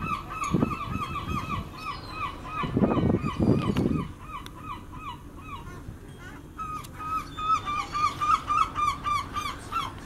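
Gulls calling: a fast run of short, high, repeated notes, about four a second, that breaks off about four seconds in and starts again about two seconds later. Gusts of wind buffet the microphone in the first few seconds.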